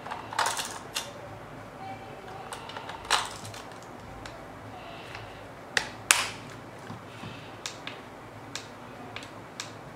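Plastic clicks, knocks and light rustling as AA batteries are loaded into a Digitek DFL-044 camera flash and its body is handled. A sharp pair of clicks about six seconds in is the loudest, with lighter ticks after it.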